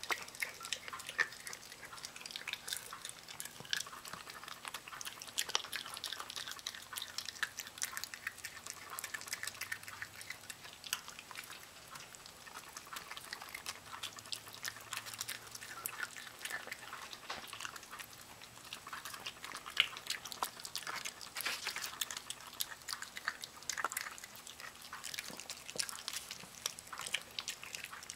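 Miniature pinscher chewing and gnawing on a piece of raw chicken, a steady run of irregular short clicks and smacks from its jaws.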